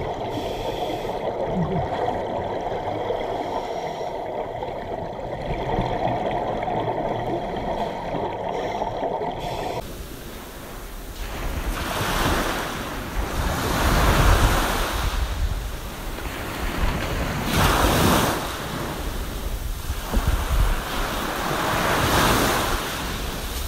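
A muffled, steady rush of water for about ten seconds. Then, after a sudden change, sea waves surge in and wash out, swelling every two to four seconds.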